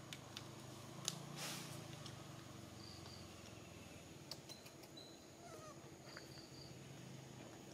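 Faint outdoor ambience: scattered light clicks, a short rustle about a second and a half in, and a few brief high chirps.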